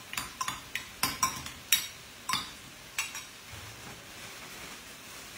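Metal spoon stirring chopped raw prawns in a small glass bowl, clinking sharply against the glass about eight times, then stopping about three seconds in.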